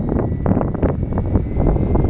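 Strong wind buffeting the microphone in gusts, with a faint steady high whine from a radio-controlled BO 105 scale helicopter flying in it.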